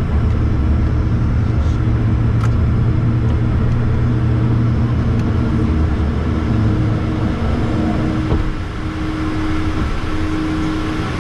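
Learjet cabin noise during takeoff: the jet engines drone steadily at takeoff power over a heavy low rumble from the runway roll. The rumble eases a few seconds in as the aircraft lifts off and climbs, while a steady hum holds throughout.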